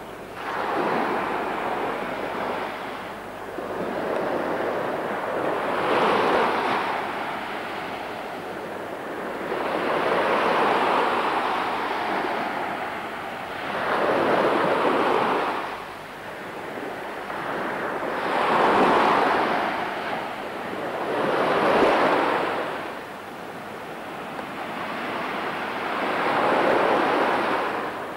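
Small waves washing up onto a sandy beach. The surf noise swells and falls away about every four seconds.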